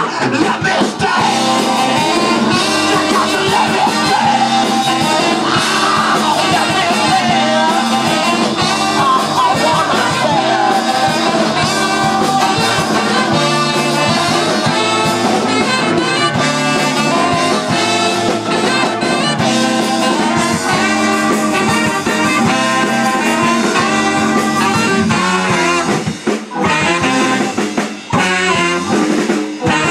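Live band music: a horn section of trumpets and saxophones playing over electric guitar and bass, loud and dense, with a couple of brief breaks near the end.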